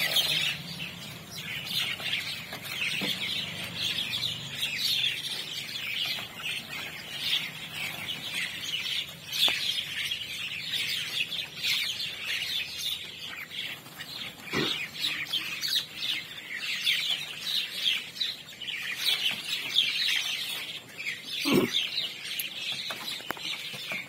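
A large flock of mynas calling all at once, a continuous chatter of many overlapping harsh chirps and squawks. Two brief low thumps come through, about fifteen and twenty-two seconds in.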